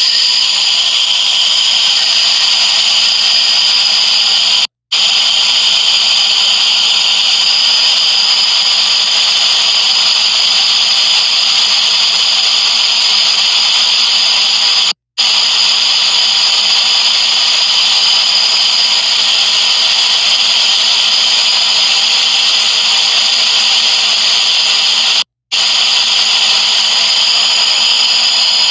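Electric grain grinder running steadily, grinding a mix of seeds into coarse meal. It makes a loud, even whine, with three very brief drops to silence about ten seconds apart.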